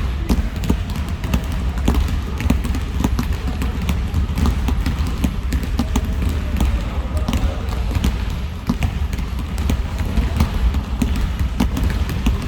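Several basketballs being dribbled at once on a hard gym floor: a dense, irregular patter of overlapping bounces over a steady low rumble.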